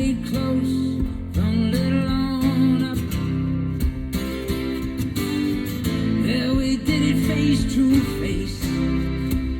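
A guitar-led song playing through a Ground Zero Reference car audio system, in a passage where no lyrics are sung.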